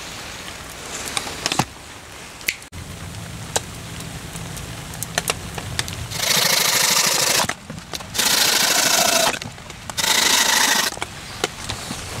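Three long rasping strokes of a blade cutting into wood, each about a second, with short pauses between them.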